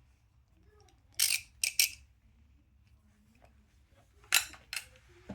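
Gearwrench 84-tooth locking flex-head ratchet being worked: short, sharp metal clicks, three about a second in and two more about four seconds in, as the flex head is locked and unlocked.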